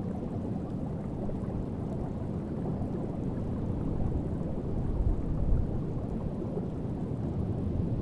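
Underwater ambience: a low, steady rumble of moving water.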